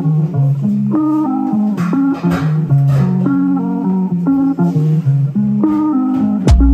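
Background music: a plucked guitar melody over a bass line, with a deep drum beat coming in near the end.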